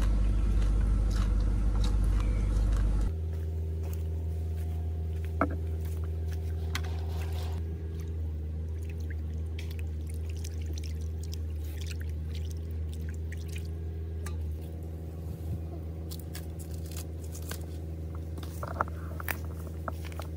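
A steady low motor drone with a constant pitch, dropping in level about three seconds in and again about two-thirds of the way through, with a few light clicks over it.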